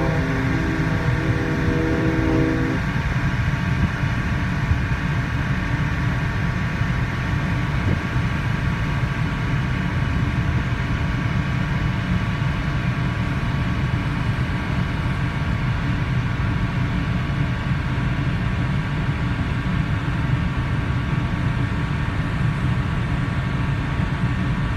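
A large ferry's ship whistle, a deep chord of several steady tones, sounding and then cutting off about two and a half seconds in. After it there is only a steady low rumble aboard the ferry under way.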